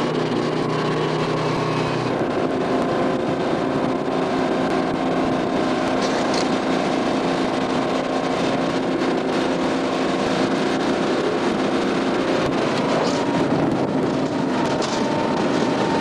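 Potato-handling machinery running steadily: the hopper's conveyor drive hums while the load of potatoes shifts on the belt, with a few light knocks.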